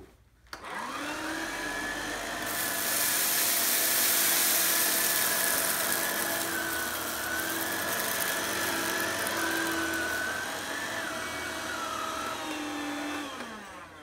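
Battery-operated closed-loop vacuum cleaner built on a Shark 1110 vacuum switched on: its motor spins up with a rising whine, then runs steadily with a loud rush of air that swells about two seconds in. Near the end it is switched off and the motor winds down with a falling whine.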